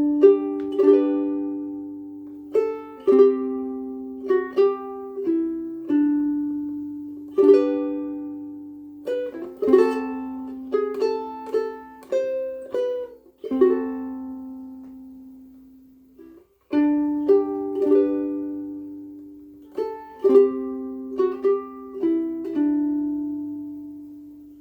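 Concert ukulele played as a slow fingerpicked tune: single plucked notes and chords ring out and fade, with a brief pause about two-thirds of the way through.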